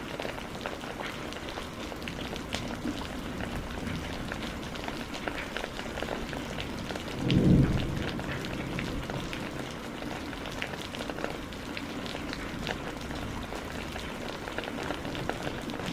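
Steady rain falling, with many small drop ticks over an even hiss, and a brief low rumble about halfway through.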